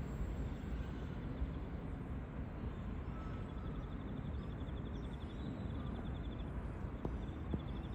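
Steady low outdoor rumble with no horn or engine tone. From about three and a half seconds in there is a faint, fast, high-pitched ticking, and a couple of small clicks come near the end.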